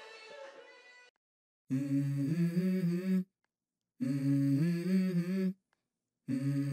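Background music: a song's instrumental ending fades out over the first second, then after a short gap come three hummed vocal phrases, the opening of the song.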